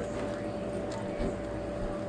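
A steady high hum over low, even background noise.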